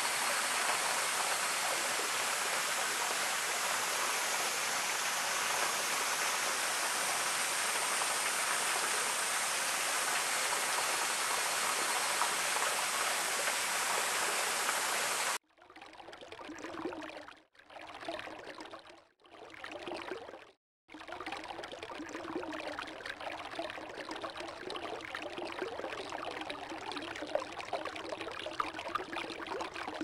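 Waterfall splashing onto rocks, a steady rush of water. About halfway through it cuts to a quieter stream sound recorded underwater, with a low gurgle and a few brief gaps.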